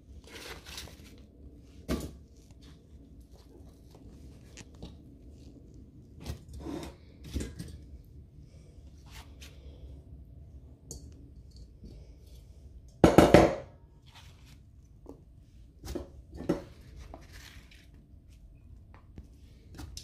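Paring knife cutting and trimming apples on a plastic cutting board: scattered knocks, clicks and short scrapes as pieces are cut and pushed about. A louder clatter sounds once, about two-thirds of the way through.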